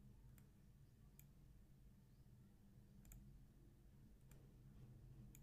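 Faint computer mouse clicks, about five spread out at irregular intervals, over a low steady hum.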